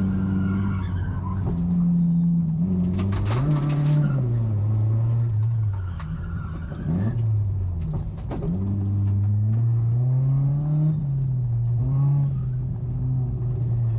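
Car engine driven hard on a course, revving up and easing off over and over as the pitch climbs and drops with gear changes and lifts. A short burst of noise comes about three seconds in, likely tire squeal.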